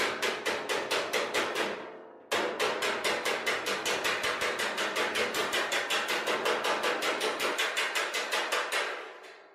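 Panel hammer striking thin welded steel sheet over a hand-held dolly: rapid, even metallic strikes about five a second, with a short break about two seconds in, then running on and dying away near the end. This is hammer-on-dolly planishing along a weld, stretching the weld back out to undo the heat shrinkage and straighten the buckled panel.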